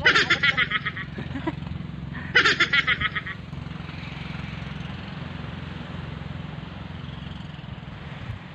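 Laughter in two short bursts, one at the start and another about two and a half seconds in, over a steady low engine-like hum.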